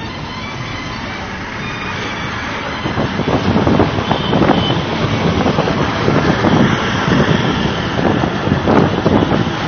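Steady road and engine noise of a moving van in city traffic. From about three seconds in, louder uneven wind buffeting on the microphone as it turns toward the open side window.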